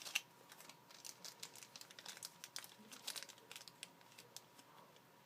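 Crinkling of a packaging bag being handled while a coin is pulled out of it: a run of faint, irregular crackles and small clicks that thin out toward the end.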